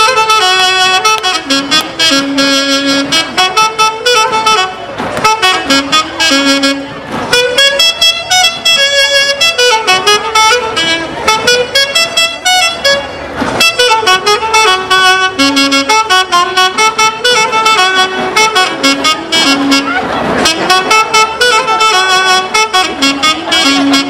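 An orquesta típica from central Peru playing live, with a saxophone section carrying the melody over a steady, quick beat.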